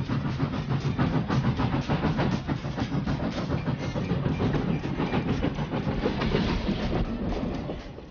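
White Pass & Yukon Route narrow-gauge steam locomotive working past, its exhaust chuffing and its running gear clattering in a quick, even rhythm, fading away near the end.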